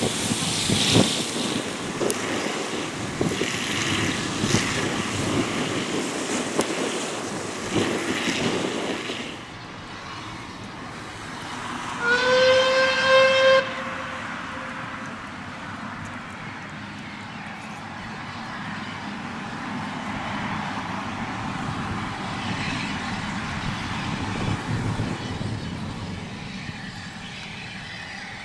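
Steam locomotive hissing steam with irregular exhaust beats for about nine seconds, likely Caledonian Railway 0-4-4 tank engine No. 55189. After a sudden drop in level, a single steam whistle blast of about a second and a half, sliding up slightly at the start, sounds about twelve seconds in, followed by a steady distant rumble.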